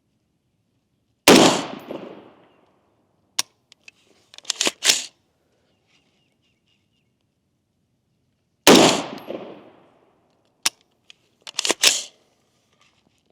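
Two unsuppressed shots from an Adams Arms 20-inch SPR AR-15 rifle build, about seven seconds apart, each ringing out briefly. A couple of seconds after each shot comes a quick run of sharp metallic clicks and clacks.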